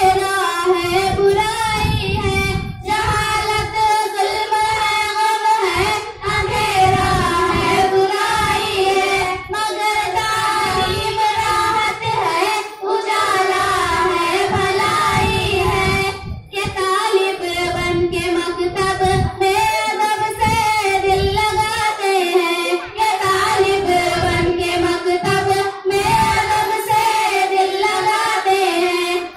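A small group of schoolgirls singing a taraana, an Urdu song, together into handheld microphones, in continuous phrases with brief breaths between them.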